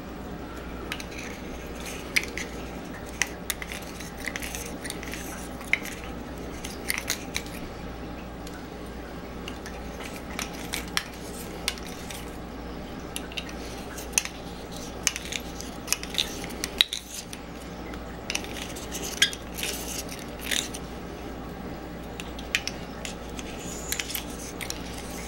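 Small pocket knife scraping inside a PVC pipe adapter, shaving away the inner ridge: irregular scrapes and sharp clicks of blade on plastic, over a steady low hum.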